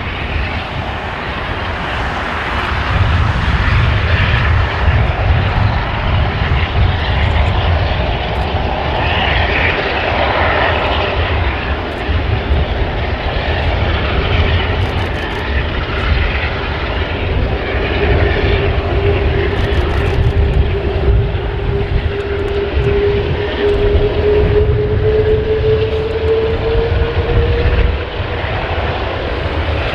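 Jet engines of an Airbus A380-841, its four Rolls-Royce Trent 900 turbofans, running as the airliner rolls along the ground: a steady low rumble with jet noise. In the second half a single tone comes in and rises slowly in pitch.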